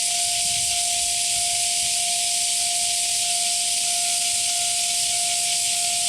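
Japanese level-crossing warning bell ringing, a steady tone that pulses slightly a little under twice a second, under a louder, even high hiss.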